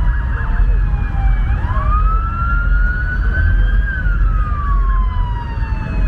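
Emergency vehicle siren on a slow wail: the tone sinks to its lowest about a second and a half in, sweeps back up, holds high around four seconds in, then falls slowly again near the end. A steady low rumble of engine and road noise runs under it.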